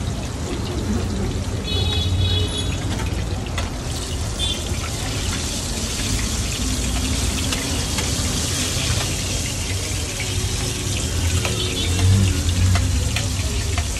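Battered chicken skewers deep-frying in a wide pan of hot oil: a steady, loud sizzle, with the occasional light clink of a metal spoon and tongs against the pan as the skewers are turned.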